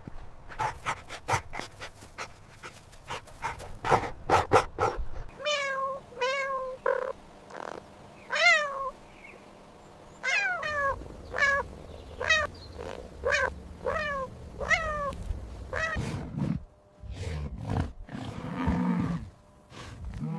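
Domestic cat meowing over and over, about a dozen short meows, some bending up and down in pitch. Before them comes a quick run of sharp clicks.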